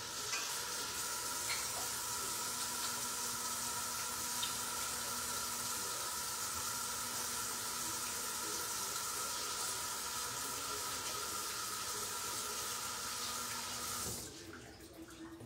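Kitchen sink faucet running in a steady rush while hands are washed under it, with a faint steady tone in the flow; the tap is shut off about a second before the end.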